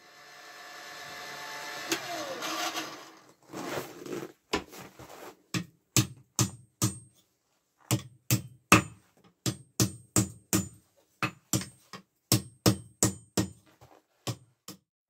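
Blacksmith's hand hammer striking hot iron on an anvil, about two blows a second with a short metallic ring after each and a brief pause partway through. Before the hammering, a steadier sound with some tones fades in over the first few seconds.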